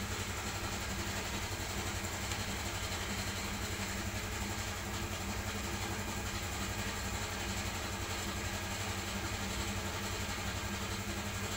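A steady, low mechanical drone, like an engine idling, holding even throughout with no distinct knocks or clicks above it.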